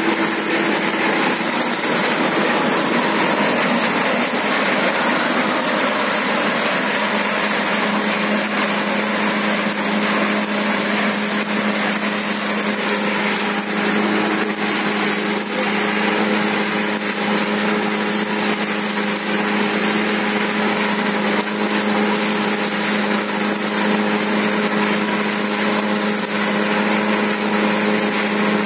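John Deere 5075 tractor's diesel engine running steadily under load, pulling a PTO-driven Happy Seeder whose rotor whirs as it chops through straw stubble. A steady drone, with a clearer hum settling in several seconds in.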